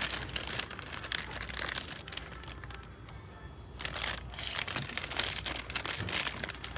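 Crinkling, rustling handling noise in two spells, with a short lull about three seconds in.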